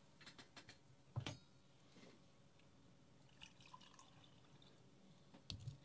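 Faint trickle of brewed coffee poured from a glass coffee server into a small glass cup, with a light knock of glass about a second in and small clinks near the end.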